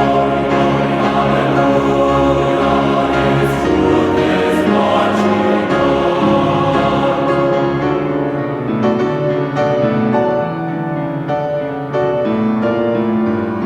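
Music with choir-like voices singing held chords, thinning in the second half to separate stepping notes.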